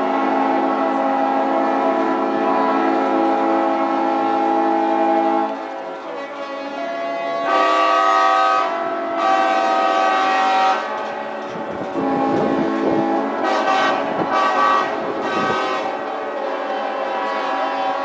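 Many yacht and boat horns sounding together in a celebratory salute, their different pitches overlapping in a long, dense chord. The chorus thins about five seconds in, then new, louder blasts come in around the middle, followed by shorter blasts.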